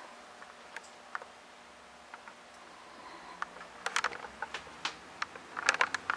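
Light clicks and taps in a quiet room: a few scattered ones, a cluster about four seconds in, and a quicker run of them near the end.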